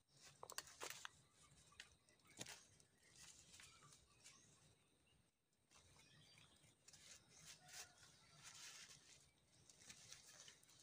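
Faint rustling and scuffling of young macaques playing on the ground among dry twigs and leaves, with a few short, high squeaks about half a second in.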